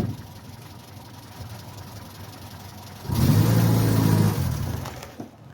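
A click, then about three seconds in the Renault's engine runs briefly with a steady low note before dying away.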